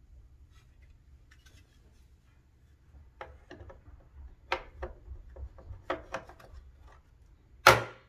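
Plastic top cover of a Smith Corona Super-G manual typewriter being fitted back over the mechanism: a string of clicks and knocks, then one loud snap near the end as it seats.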